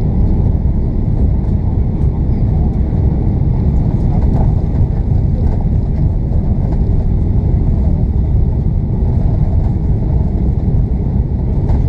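Cabin noise over the wing of an Airbus A340-600 taxiing: a steady low rumble from its four Rolls-Royce Trent 500 engines and the rolling airframe.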